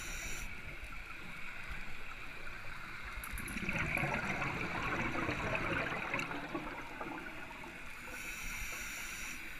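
Scuba diver breathing through a regulator, heard underwater: a rush of exhaled bubbles from about three and a half to six seconds in, with a high hiss of an inhalation at the start and again near the end.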